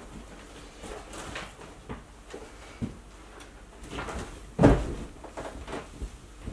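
Scattered soft knocks and cloth rustling. About two-thirds of the way in comes a loud, sudden thump, as a blanket draped over a person is pushed against the camera and its microphone.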